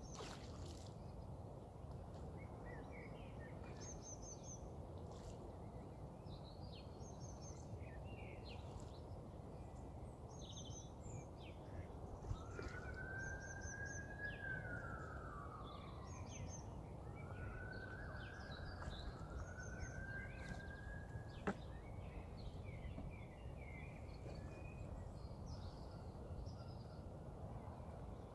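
Small songbirds chirping repeatedly over a steady low background hum of wind and distant noise. Around the middle, three smooth whistling tones rise and then fall, and a single sharp click follows a little later.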